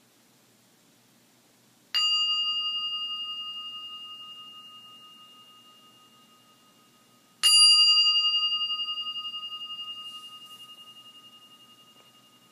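Meditation bell struck twice, about five and a half seconds apart. Each strike rings a clear, high, steady tone that slowly fades over several seconds with a slight wavering. The bell marks the start of the guided breathing practice.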